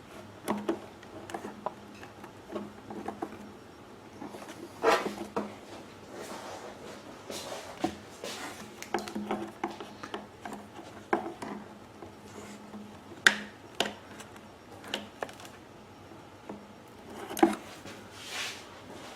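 Hands fitting a rubber fuel hose onto a small-engine fuel selector valve port and working a spring-band hose clamp back on: irregular clicks, light knocks and rubbing.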